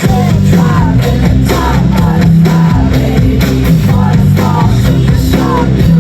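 Live rock music from a festival stage: a singer over electric guitar, bass and drums.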